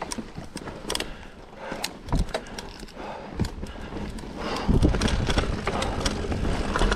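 Mountain bike riding down a dirt singletrack: tyres running over dirt and rocks with a stream of quick clicks and knocks as the bike rattles over the bumps. About five seconds in, a louder, lower rumble sets in.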